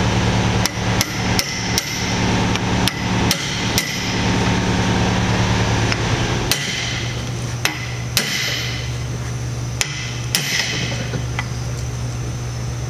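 Hammer striking a steel chisel set against the slotted bearing lock nut on a shaft, tapping it tighter: about eight quick blows, then after a short pause five more spaced out, each with a short metallic ring.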